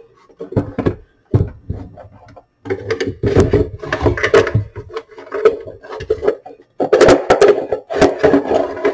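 Wooden cabinet of an 8-track player being handled and slid off its metal chassis: irregular knocks and clicks, then a longer stretch of scraping from about three seconds in, with the wooden box resonating.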